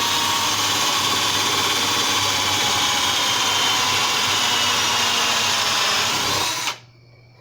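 Electric drill running steadily, spinning a cast-lead roll crimper against the mouth of a 12-gauge shotshell to roll-crimp it, then stopping abruptly near the end.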